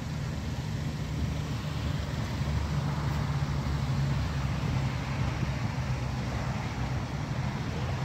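Car engine idling, a steady low hum that grows a little stronger a few seconds in.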